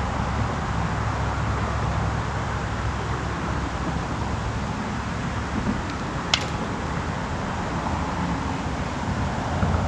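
Steady outdoor background rumble and hiss, with one short sharp click about six seconds in.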